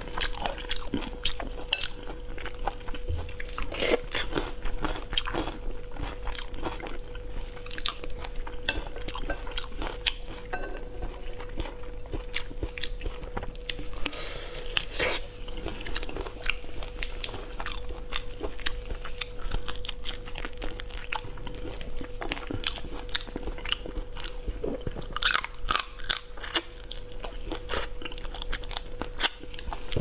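Close-miked eating: crunching, biting and chewing on marinated shrimp, with crackling as the shells are peeled by hand, over a faint steady hum.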